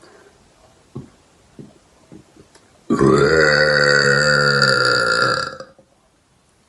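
A woman's long, loud burp about three seconds in, lasting nearly three seconds on a steady low pitch. A few faint clicks come before it.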